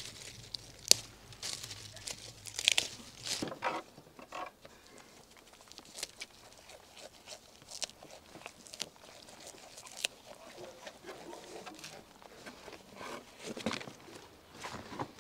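Leafy green plant stems being picked and handled by hand: crisp snaps, crackles and rustling. They are thickest in the first few seconds and come again near the end.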